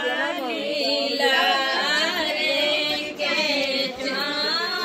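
A group of women singing a traditional wedding folk song together, several voices overlapping, as part of the haldi-pounding ritual.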